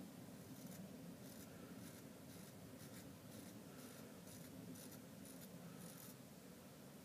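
Very sharp folding-knife blade shaving hair off a forearm: a run of faint, short scraping strokes, about two to three a second, stopping about a second before the end.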